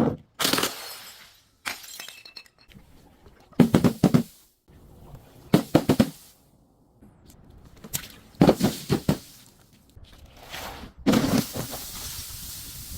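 Glass bottles breaking and shattering in a series of separate crunches, several over a few seconds with pauses between them and one longer crunch near the end.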